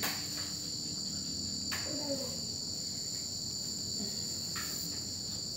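Steady high-pitched trill of insects, unbroken throughout, with a few light clinks of a serving spoon on dishes.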